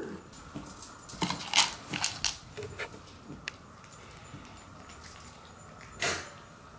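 Cats eating dry kibble from a plastic slow-feeder bowl: crunching and pellets clicking against the bowl in quick irregular bursts over the first three seconds. One louder, short, sharp sound follows about six seconds in.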